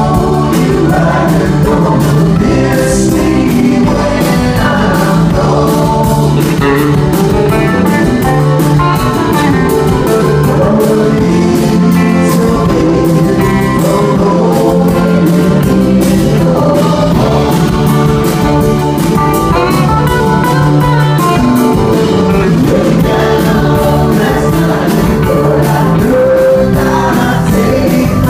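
Live rock band playing electric guitars, bass and drums with sung vocals.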